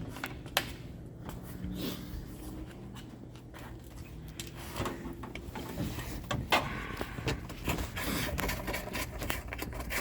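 Scattered clicks, knocks and rubbing from hand tools and car body parts being worked on, busier in the second half, over a steady low hum.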